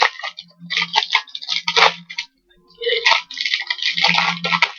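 Crinkling and rustling of packaging as a boxed CD album is taken out and handled, in several short bursts.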